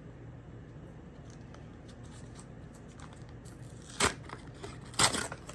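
A shipping package being torn open: a few faint rustles and clicks, then two loud rips about four and five seconds in.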